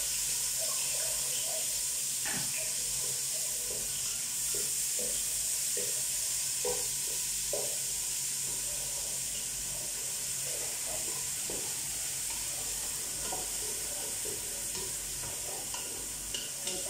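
Sliced onions sizzling as they fry in oil in an aluminium pot, a steady hiss, with scattered scrapes and knocks of a spoon stirring them.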